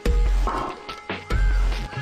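Background music with two deep bass hits, one at the start and one about a second and a half later, under sustained and sliding synth-like tones.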